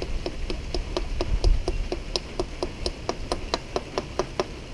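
Light, evenly spaced taps, about four a second, loudest in the middle and stopping shortly before the end, as a new filter is tapped into a fuel injector of a 2001 Yamaha 150 HPDI outboard.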